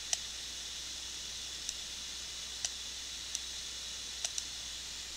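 Computer mouse clicking: about six sharp single clicks spaced irregularly, the last two in quick succession, over a steady hiss.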